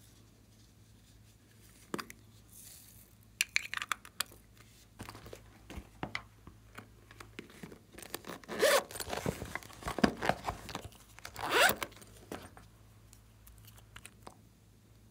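Sequined rainbow patch being handled and rubbed: scattered small clicks, then a few loud zipper-like rasps and crinkles in the second half.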